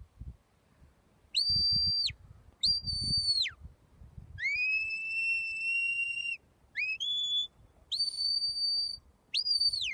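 A shepherd's whistled commands to a working sheepdog: six sharp, high whistles in quick succession. Most hold one steady note and several drop away at the end. The third is longer and lower, and a short one steps up in pitch.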